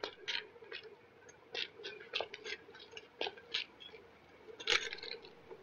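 Quiet, irregular clicks and ticks, a few a second and one sharper click near the end, over a faint steady hum.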